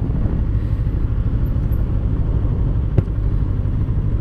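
Kawasaki Eliminator 450's parallel-twin engine running steadily at low revs while riding in traffic, mixed with road and wind noise. A single sharp click about three seconds in.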